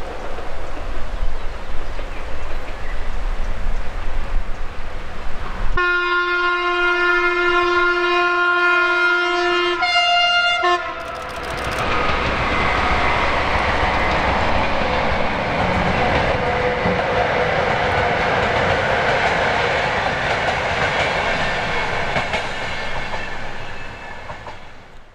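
A steady rushing noise, then the horn of a Newag Dragon E6ACTd locomotive: one blast of about four seconds and a short second one. Its passenger train then passes with the steady noise of wheels running on the rails, which fades out near the end.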